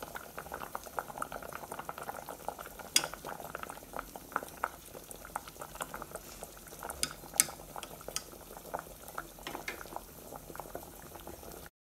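Soup boiling hard in a stainless steel saucepan: a dense, irregular patter of bubbles popping, with a few sharper clicks from chopsticks stirring against the pot. The sound stops abruptly near the end.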